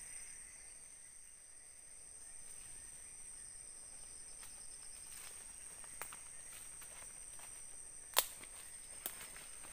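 Steady high-pitched drone of forest insects, with a few sharp snaps from about halfway through, the loudest about eight seconds in.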